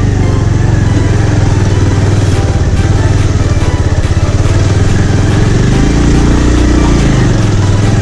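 Motorcycle engine running while riding, its pitch rising and then falling back about six to seven seconds in.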